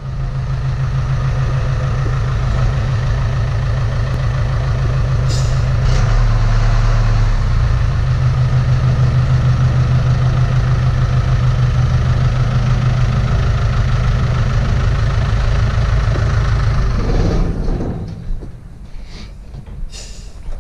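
Diesel engine of a work vehicle running steadily and loudly at close range, its pitch shifting briefly about six seconds in, with a couple of short clicks. The engine sound drops away about seventeen seconds in, leaving a few light clicks and knocks.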